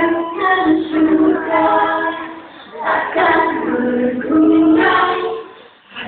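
Choir singing, with female voices to the fore: sustained sung phrases with short breaks about two and a half seconds in and near the end.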